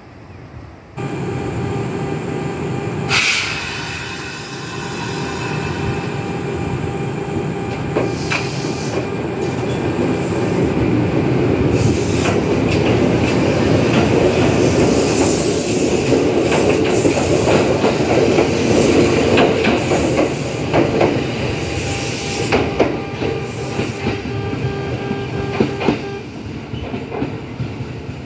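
Kintetsu electric train running alongside the platform at close range: wheel and track noise with a steady whine from the motors. A sharp, high-pitched squeal rings out about three seconds in.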